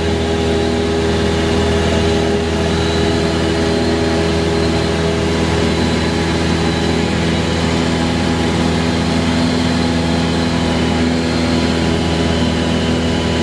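Cessna 172's piston engine and propeller droning steadily in cruise, heard inside the cabin.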